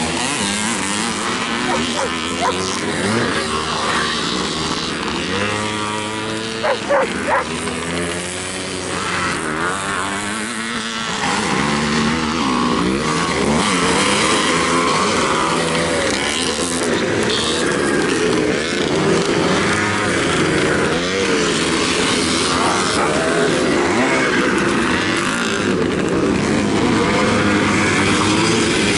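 A pack of vintage motocross motorcycles racing, several engines overlapping as they rev up and down through the gears and corners.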